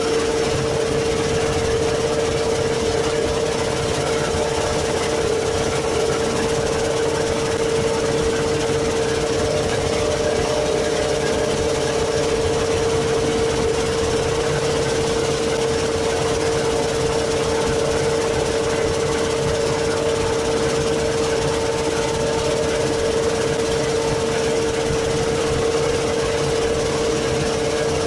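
GSF40 concrete reclaimer running steadily: a constant machine hum with a steady whine, as its screw conveyor churns wet gravel out of the washing trough and rinse water splashes.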